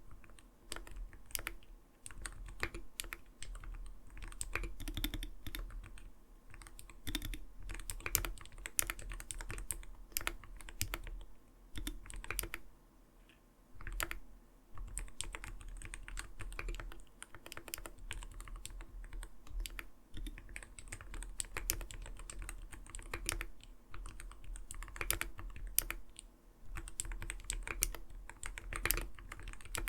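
Continuous typing on an Arbiter Studio Polar 65 Phantom 65% mechanical keyboard: a quick, uneven run of soft 'koto-koto' key strokes that are not too light, with a short pause about twelve seconds in.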